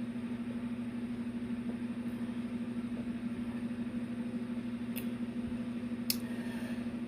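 Steady low electrical hum, with two faint clicks about five and six seconds in.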